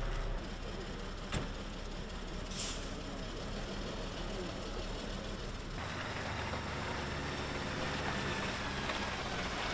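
Outdoor work-site noise with a heavy engine running, broken by one sharp knock about a second and a half in; the background changes abruptly twice.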